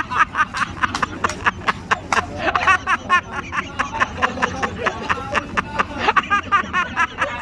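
Several people chattering and laughing in short, quickly repeating bursts.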